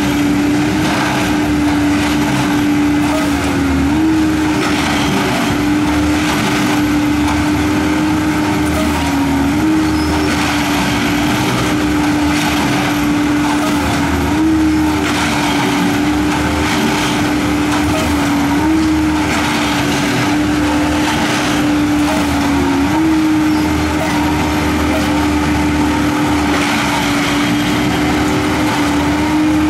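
Railroad ballast tamping machine at work: its engine and hydraulics run with a steady loud whine whose pitch dips and jumps back about every four to five seconds, each repeat marking one tamping cycle as the machine squeezes the ballast and moves on to the next tie.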